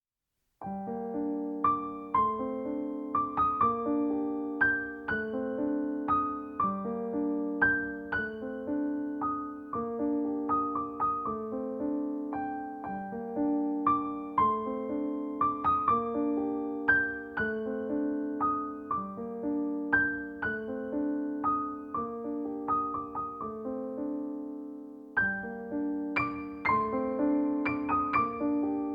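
Background music of solo piano playing a gentle, repeating pattern of notes. It starts about half a second in, and a new phrase begins a few seconds before the end.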